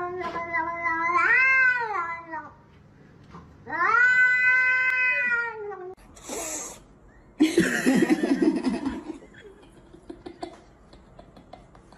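Domestic cats meowing in long, drawn-out yowls: two long calls in the first half, each rising and falling in pitch, then a rougher, lower yowl about eight seconds in.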